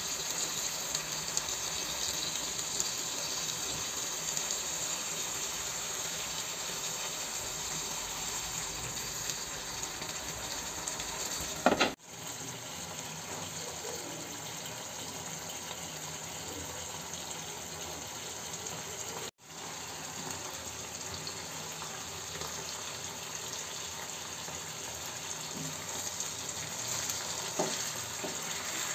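Koi fish wrapped in bottle gourd leaves simmering and sizzling in sauce in a frying pan: a steady hiss, with a single knock about twelve seconds in. The sound cuts out for an instant twice.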